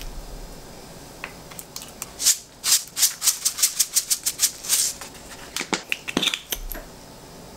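Whole sesame seeds rattling in a shaker jar as it is shaken over a bowl to sprinkle them, about four shakes a second for some three seconds. A few light clicks follow near the end.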